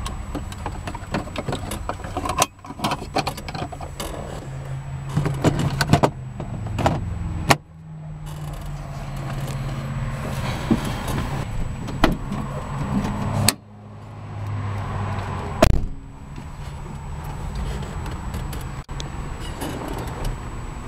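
Inside the cabin of a Snyder ST600-C three-wheeler: a steady low hum that shifts pitch a few times, broken by about half a dozen sharp clicks and knocks as the ashtray and other interior fittings are handled. The loudest knock comes near the end.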